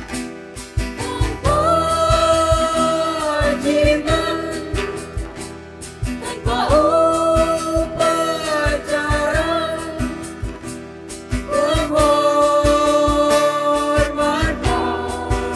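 Girls' voices singing long held notes in harmony, with acoustic guitar accompaniment and a steady beat played on a cajon.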